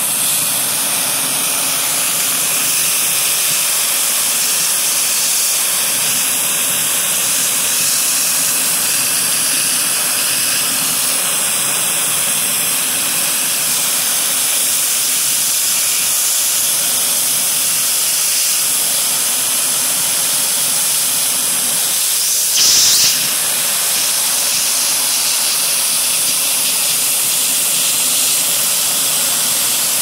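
Shark vacuum cleaner running steadily, its crevice tool sucking up glitter around a vacuum dust bin with a constant rushing hiss of air. About two thirds of the way through there is a brief louder rush.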